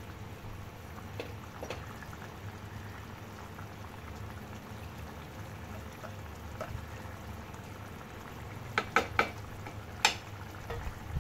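Fish curry sauce boiling steadily in an aluminium pot with fish pieces in it. Several sharp knocks near the end, from the wooden spatula against the pot.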